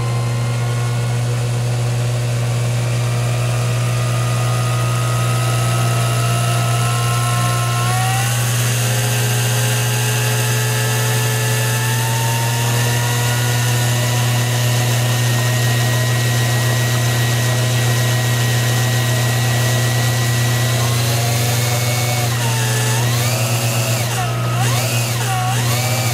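Bench rig driving a belt-driven aluminium kart water pump through a water-flow test: a steady motor whine with a constant low hum, climbing in pitch as the pump speeds up from about 4,000 to over 7,000 RPM, with a step up about eight seconds in. Near the end the pitch wavers up and down as the speed fluctuates.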